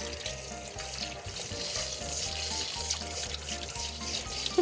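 Water running steadily from a grooming shower sprayer as a cat is washed, with soft background music underneath.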